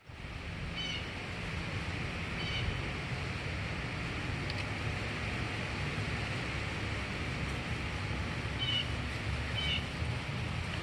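Steady low outdoor rumble, with four short high chirps: two near the start and two near the end.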